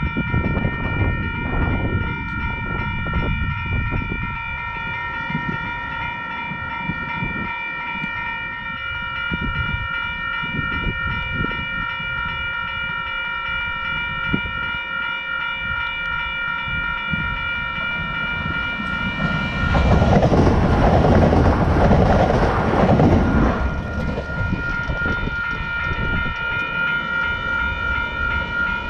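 Level crossing warning bells ringing steadily. About two-thirds of the way in, an electric train passes close by for around four seconds, and its rush drowns out the bells.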